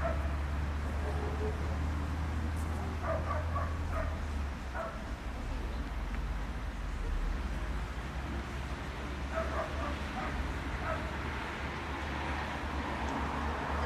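A dog barking, a few short barks about three seconds in and a few more about ten seconds in, over a steady low rumble.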